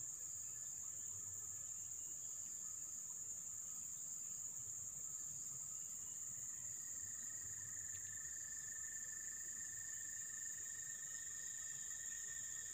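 Insects chirring in a steady, high-pitched drone. A second, lower steady tone joins about halfway through.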